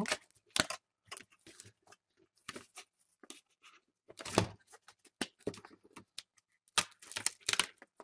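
Thin aluminium foil shield on the back of a laptop LCD panel being peeled back and handled, crinkling and crackling in irregular short bursts, loudest about halfway through.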